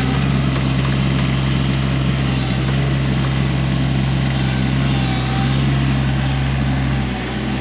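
Excavator engine running steadily with a constant low hum, dropping slightly about seven seconds in.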